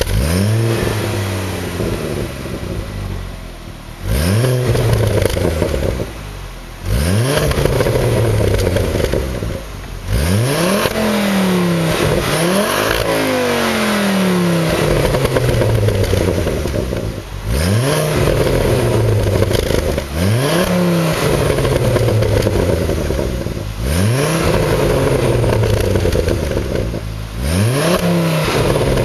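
Ford Focus ST's turbocharged 2.5-litre five-cylinder engine breathing through a Milltek Sport turbo-back de-cat exhaust, free-revved repeatedly while parked: about nine sharp blips, each pitch rising quickly and falling back to idle.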